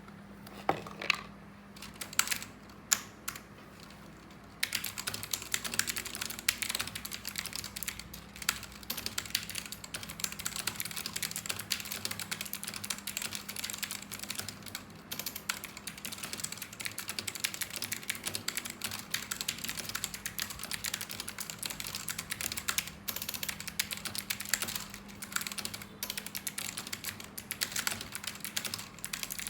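Computer keyboard typed on quickly in a typing test, at about 74 words a minute: a few separate keystrokes, then from about four seconds in a rapid, unbroken run of key clicks.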